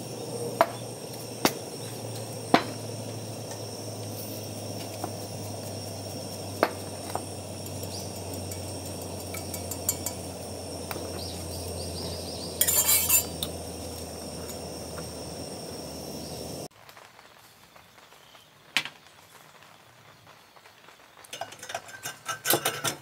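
Stainless steel coffee utensils (a drip filter cup and saucer) clinking as they are handled: a few sharp metallic clinks and a brief rattle about halfway, over a steady low hum and hiss. After a sudden drop to quieter background, light metal clicks near the end as stainless steel parts on a gas burner stand are handled.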